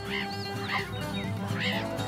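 A meerkat pup giving a few short, high squeaks, each rising and falling, over background music.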